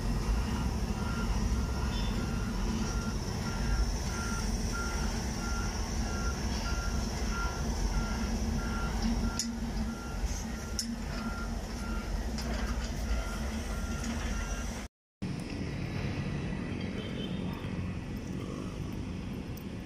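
Construction-vehicle reversing alarm beeping steadily over the low rumble of heavy machinery engines; the beeping stops about two-thirds of the way through and the machinery rumble carries on.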